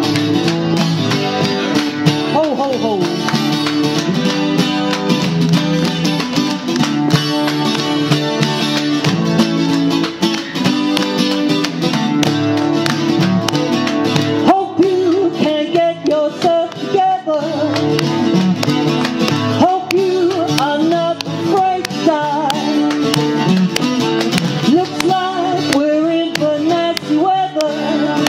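Live music led by acoustic guitar: steady chords, with a gliding melody line over them from about halfway through.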